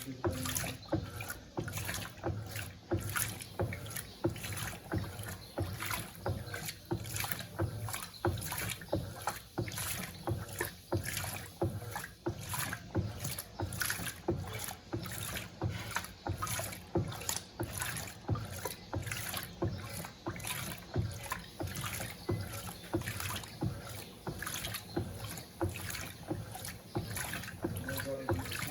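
Electrolux Turbo Compacta 7 kg (LTC07) washing machine agitating a load of towels in water: a rhythmic slosh and swish repeating about one and a half times a second.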